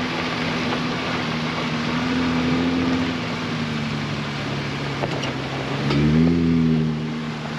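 Vehicle engine running steadily while driving on a rough forest road, with tyre and road noise. The engine pitch climbs briefly about six seconds in as it accelerates.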